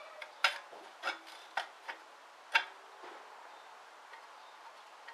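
Sharp clicks and knocks of parts and tools being handled while a Turbo 350 automatic transmission's clutch pack is taken apart, about five hits in the first three seconds, then only faint background hiss.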